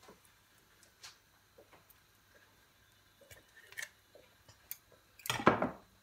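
A spoon clicking and clinking against a container as ghee is scooped out by the spoonful, with a louder scrape lasting about half a second near the end.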